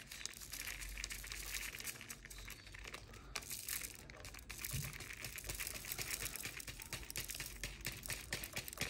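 Continuous fine clicking and rattling of small 3D-printed plastic parts being handled, as diamond-painting plates are fitted into their holder.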